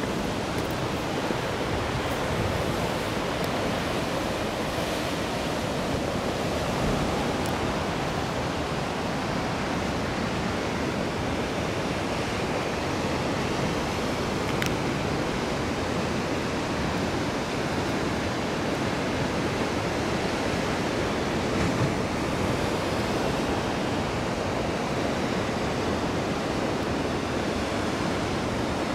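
Sea surf breaking and washing against a rocky shore: a continuous, steady rush of water.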